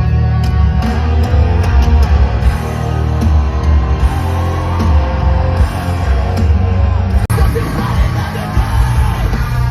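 Live rock band playing loud through a festival PA, with a singer's vocals over heavy drums and distorted guitars. The sound cuts off for an instant about seven seconds in and resumes with a different stretch of the music.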